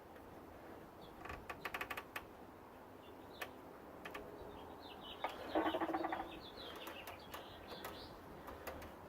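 Work on an engine with hand tools: a quick run of sharp metallic clicks, then scattered single clicks and a short clatter of metal. Birds chirp faintly in the background.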